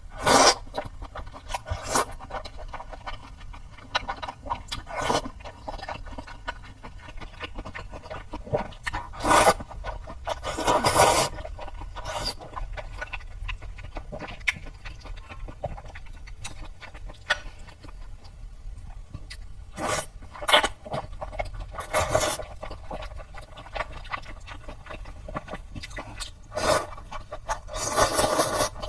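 Close-up mouth sounds of someone eating wide noodles in sesame paste: irregular wet slurps, chewing and lip smacks, with a few longer, louder slurps.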